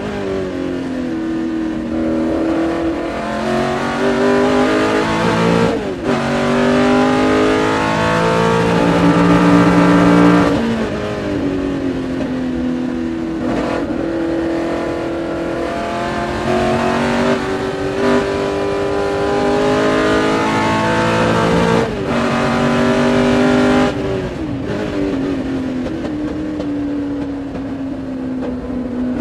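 Ford GT40 racing V8 at full song, heard from inside the cockpit: its pitch climbs through the gears with short breaks at each shift, then drops away when lifting and braking for corners.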